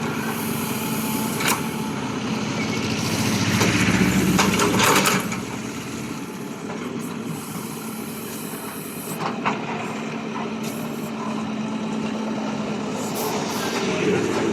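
Diesel engine of a JCB excavator running under load, working harder and louder for a couple of seconds before easing off, with a few sharp knocks.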